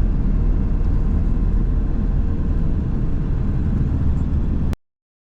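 Steady low road and engine rumble of a vehicle being driven, heard from inside the cab. It cuts off suddenly near the end.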